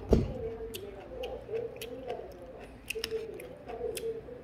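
Restaurant table sounds: a muffled, indistinct voice runs underneath, with a low knock at the start and scattered light clinks of tableware.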